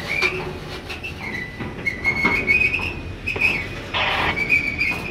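Freight train boxcars rolling past close by: a steady low rumble, wheels squealing in a wavering high tone, and sharp clacks and knocks as the wheels pass over the track, the loudest about four seconds in.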